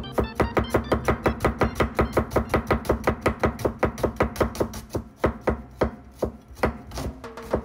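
Kitchen knife slicing a red onion into thin slices on a cutting board: quick, even chopping strokes about six a second, slowing and turning irregular about five seconds in.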